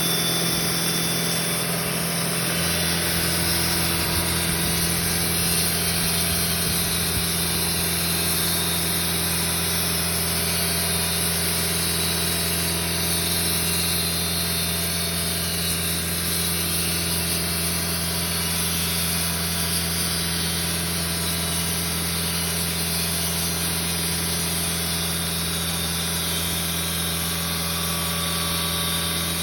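Sawmill engine running steadily; a low hum joins in about two and a half seconds in and holds level.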